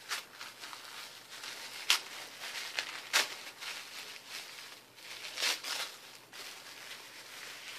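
White tissue paper rustling and crinkling as a small taped-up package is unwrapped by hand, with irregular sharper crackles, the loudest about two, three and five and a half seconds in.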